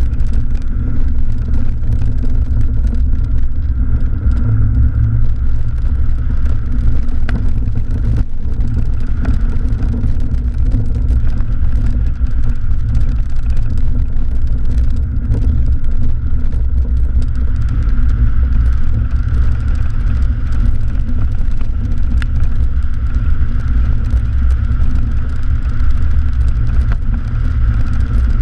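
1984 Mercedes-Benz 190E 2.3-8V's four-cylinder engine driving hard across a grass rallycross course, heard from a camera on the outside of the door. Its note runs under a loud, steady low rumble, with a few single clicks.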